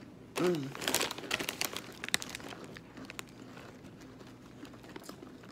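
Foil snack-chip bag crinkling as it is handled, in a flurry of crackles over the first two seconds and only faint rustles after. A short hum from a voice comes about half a second in.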